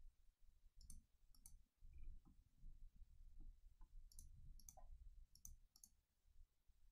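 Faint computer mouse clicks over near silence: two about a second in, then a quicker run of four later on.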